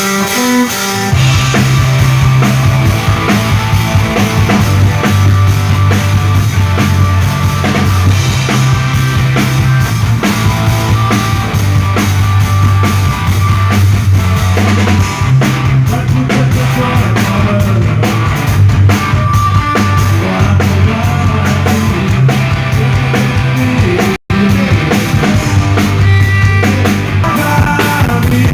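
Live rock band playing at a sound check through a loud stage sound system: drum kit, electric guitars and a heavy bass line. The sound cuts out for an instant about three-quarters of the way through.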